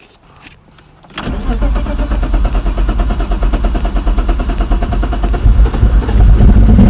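A BMW 325i E36's 2.5-litre straight-six is cranked over by the starter, a loud rapid churning that starts suddenly about a second in. It is the first start of a car left abandoned for years. The sound grows louder near the end as the engine catches.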